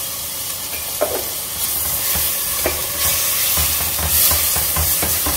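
Onion, spices and ginger-garlic paste sizzling in coconut oil in a stainless steel pot, stirred and scraped with a silicone spatula. The sizzle grows louder partway through as the stirring picks up, with a sharp knock about a second in.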